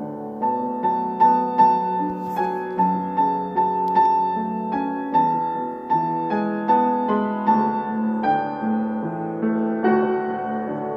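Slow instrumental melody on a keyboard instrument, about two notes a second over a lower held note.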